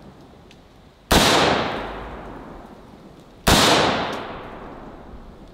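Two single shots from an AR-15 firing green-tip 5.56 steel-core rounds, about two and a half seconds apart, each with a long echo fading through the surrounding woods.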